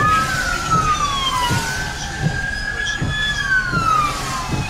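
Emergency vehicle siren wailing in long sweeps. It glides down, rises about a second and a half in, holds high, then falls slowly again near the end. Steady wind-driven rain noise runs underneath.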